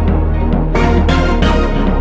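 Loud background music with a steady beat and heavy bass.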